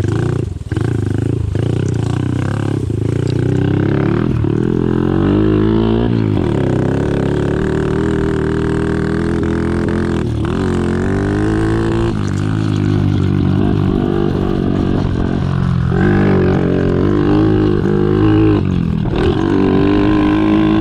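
Honda SL70's small single-cylinder four-stroke engine running under changing throttle, its droning note rising and falling several times as it is revved or ridden.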